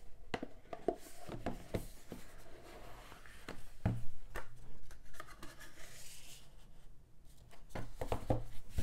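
Hands handling a cardboard Blu-ray box set on a tabletop: rubbing and sliding of card, with scattered light knocks and one firmer knock about four seconds in.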